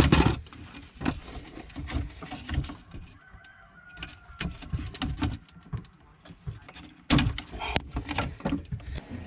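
Wire cutters snipping the wires of an old boat exhaust blower, with clicks and rustling as the wires and ribbed ducting hoses are handled. A louder rustle and clatter comes about seven seconds in as the blower is worked loose.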